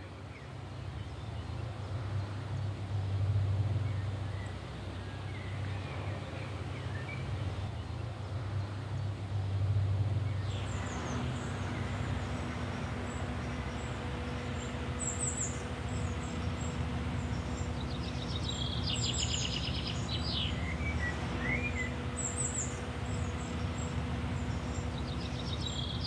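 Small birds chirping in short scattered calls over a steady low hum. Before that, for the first ten seconds, there is only a low rumble.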